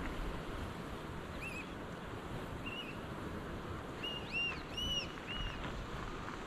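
Steady rush of wind and surf on the coast, with short, clear, rising-and-falling bird calls: one or two singly, then four or five in quick succession from about four seconds in.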